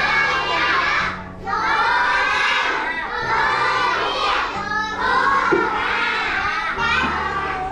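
A group of children singing a song together over a steady instrumental backing, in phrases about two seconds long with short breaks between them.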